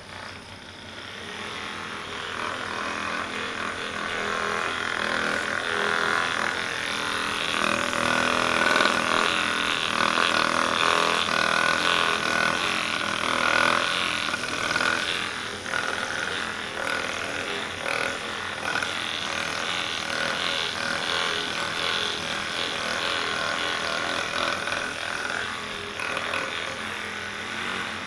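Handheld percussion massage gun running, its motor and hammering head making a steady buzz against the leg. The buzz swells and wavers in loudness as the head is pressed into and moved around the knee.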